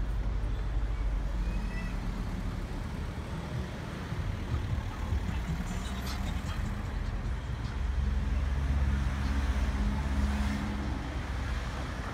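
City street traffic: motor vehicle engines running and passing, with a low engine hum that is loudest around eight to eleven seconds in.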